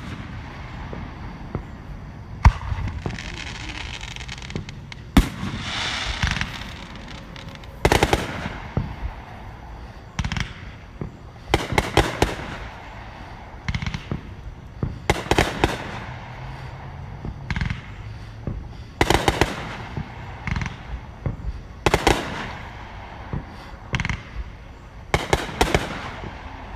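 Aerial fireworks going off: repeated sharp bangs of shells bursting, every couple of seconds and often in quick clusters of several, with crackling and hissing between them, heaviest in the first quarter.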